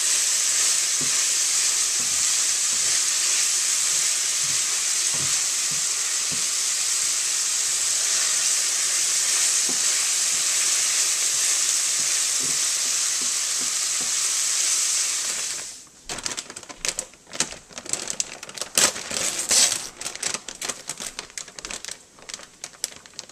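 Onion and celery sautéing in canola oil in a pan, sizzling steadily while a wooden spoon stirs them. The sizzle stops abruptly about two-thirds of the way through. After that come irregular crinkles and rustles as a plastic bag of roasted chicken is torn open.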